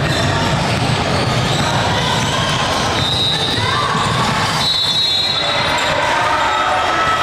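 Basketball game sounds: a ball bouncing on a gym floor, with a steady background of voices from players and spectators. A few short high squeaks come through in the middle.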